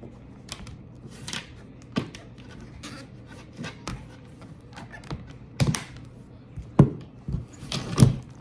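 Irregular clicks and taps of hard plastic as a laptop and its snap-on plastic case are handled, with a few louder knocks in the second half.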